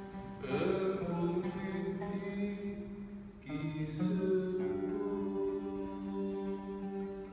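A man sings long held, chant-like notes to his own oud accompaniment. The oud is plucked a few times under the voice.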